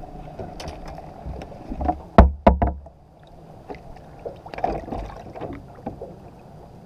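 Knocks and thumps of gear being handled aboard a bass boat, the loudest a pair of sharp knocks about two seconds in, with lighter clatter later, over a faint steady hum.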